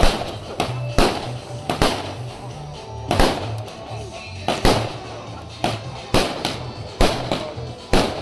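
Aerial fireworks firing and bursting overhead in a run of sharp bangs, roughly one every half second to a second, over music with a heavy bass line.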